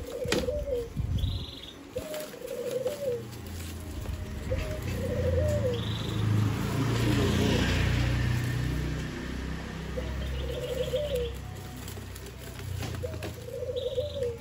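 A dove cooing over and over, one short phrase every couple of seconds, with a low rumble swelling up through the middle and fading again.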